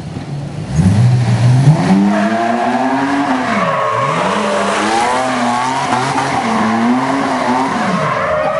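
Off-road buggy engine revving hard as the buggy spins donuts, its tyres squealing and scrabbling on the pavement. The revs shoot up about a second in, then rise and fall in long waves, dipping twice.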